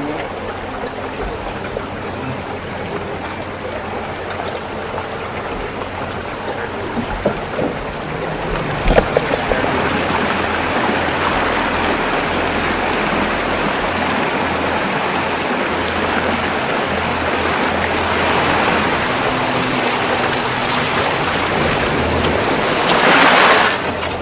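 Water rushing past the hull of a moving aluminium motorboat, with its outboard motor running underneath. The rush gets louder about eight seconds in, with a sharp click just after, and swells briefly near the end.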